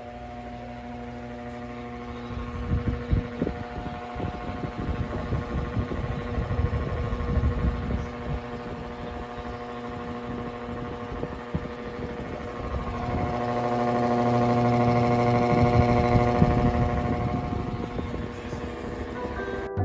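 Lasko Wind Storm pedestal fan running at maximum speed: a steady motor hum over rushing air, with an uneven low rumble that grows louder about two-thirds of the way through.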